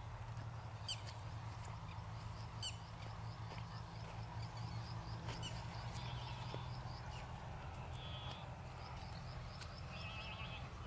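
Birds calling in the open fields: sharp single chirps every second or two, a quick run of repeated chirps in the middle and a few short buzzy calls, over a steady low hum.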